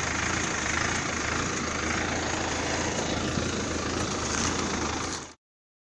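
Engine of a corn harvesting machine running steadily, the sound cutting off abruptly about five seconds in.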